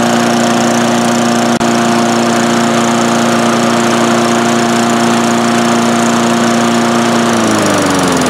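Craftsman 4.5 hp push mower's single-cylinder engine running steadily at speed, then dropping in pitch as it slows near the end. It runs well, a good runner.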